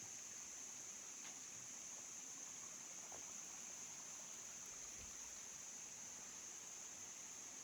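Faint, steady high-pitched drone of insects, with a few faint ticks.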